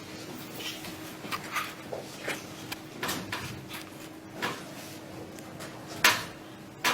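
Handling sounds of a chiropractic manipulation: scattered soft knocks and rustles of body and cloth, then a sharp loud snap about six seconds in and a second one just before the end.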